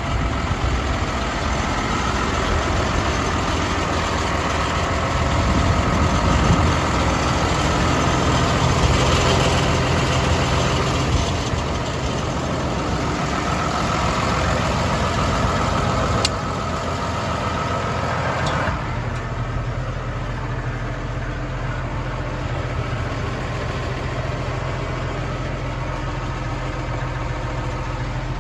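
New Holland T7.225 tractor's six-cylinder diesel engine idling steadily. A sharp click comes about two-thirds of the way through, and soon after the sound turns duller, heard from inside the cab.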